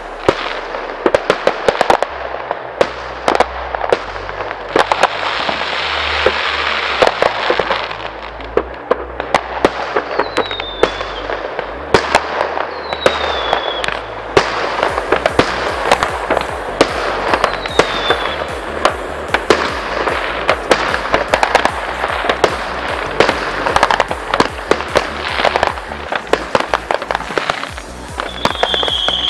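Aerial fireworks going off in a dense string of sharp bangs and crackles, with a few short falling whistles, over electronic dance music with a steady deep bass.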